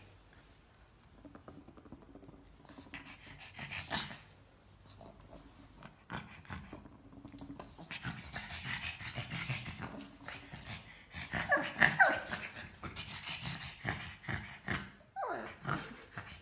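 A pug panting in quick, rhythmic spells, heaviest in the second half.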